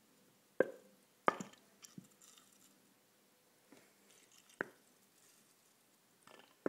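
Handling of a lighter-fluid can and a plastic filling cup while fluid is squeezed into the cup: a few sharp clicks and taps, the loudest about half a second and a second in, another near the middle, with faint squishing between.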